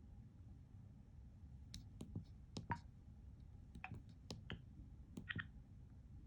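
Faint, sharp clicks of a Motorola RAZR V3's keypad buttons being pressed, about ten in irregular bunches through the middle of the stretch.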